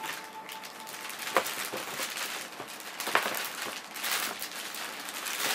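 A clear plastic accessory bag being handled and crinkled, rustling throughout with sharper crackles about a second and a half in and again about three seconds in.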